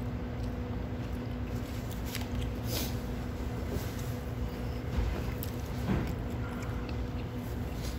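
Steady indoor room hum with a low rumble, broken by a few faint, short knocks.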